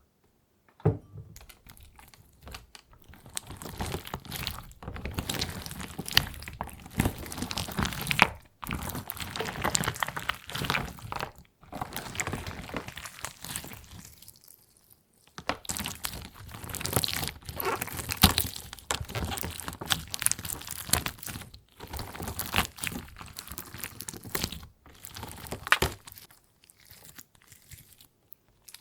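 Hardened wax crackling and crunching as it is pressed and broken apart by hand, in bursts of a few seconds with short pauses between.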